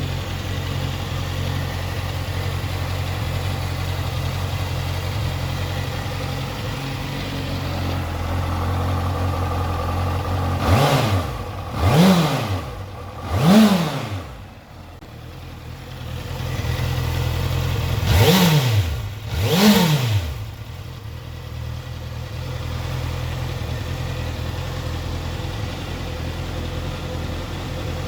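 Honda CBR650F's 649cc inline-four engine idling, then blipped three times in quick succession about a third of the way in, and twice more a few seconds later. Each rev rises sharply and falls straight back to idle.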